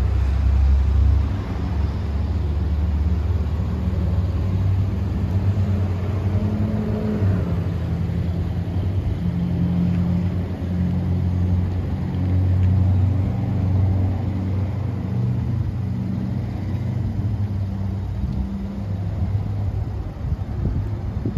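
A vehicle engine running with a low rumble, loudest in the first second or so.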